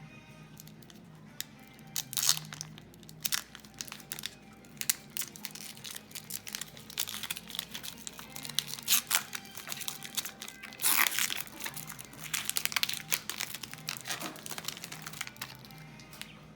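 Trading card pack wrapper being crinkled and torn open by hand: a long run of sharp crackles and rips, loudest about eleven seconds in.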